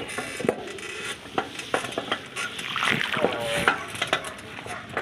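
Bicycle rolling over a rough dirt path: crackling tyre noise with frequent clicks and rattles, and a brief squeak about three seconds in.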